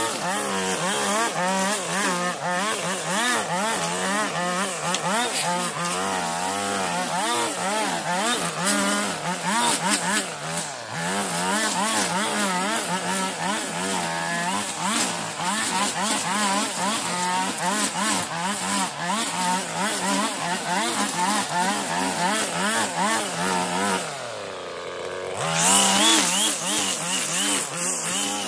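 Petrol strimmer cutting long grass, the engine revving up and down constantly as the throttle is worked. About 24 seconds in the throttle is let off and the engine drops to idle for a second or so, then it revs back up to full cutting speed.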